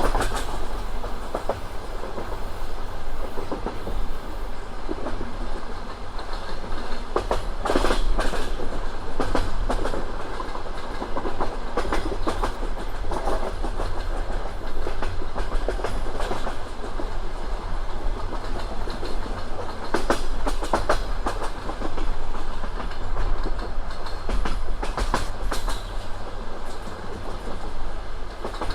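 Passenger train running along the line, its wheels clacking over rail joints in clusters every few seconds above a steady rolling rumble.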